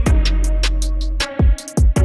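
Background music: a beat with deep held bass notes, sharp drum hits and quick cymbal ticks. The bass drops out briefly past the middle.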